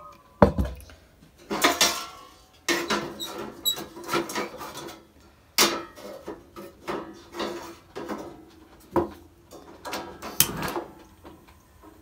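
Metal clattering and knocking: a stainless steel kettle set down heavily on a wooden counter about half a second in, then a wire stovetop toast rack clanking and rattling as it is placed and adjusted on the gas stove's burner grate. Near the end comes a cluster of sharp clicks as the burner is lit with a torch lighter.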